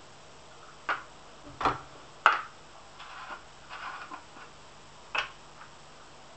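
Plastic nutrient bottles and a small plastic measuring cup being handled on a worktop: four sharp knocks and clicks, the loudest a little over two seconds in, with soft rustling of handling between them.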